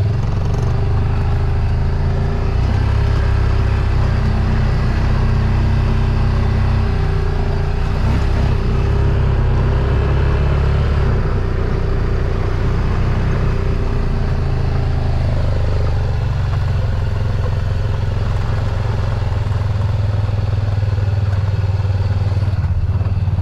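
Four-wheel-drive vehicle's engine running steadily as it is driven, a low drone whose note shifts slightly about eleven seconds in.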